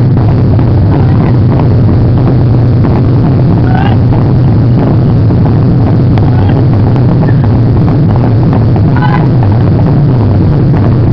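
Several Japanese taiko barrel drums (nagado-daiko) struck together with bachi sticks in a dense, continuous pounding rhythm, very loud throughout. Short shouted calls cut through twice, around four seconds in and near the end.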